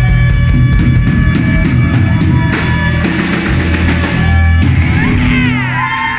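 Live rock band with drum kit, distorted guitar and bass playing loudly, with crashing cymbals in its closing bars. The band stops about four and a half seconds in, and shouting voices follow near the end.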